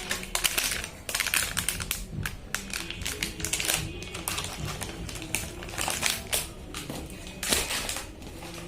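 Irregular clicks, taps and rustles of a computer motherboard and its box and packaging being handled, with music playing underneath.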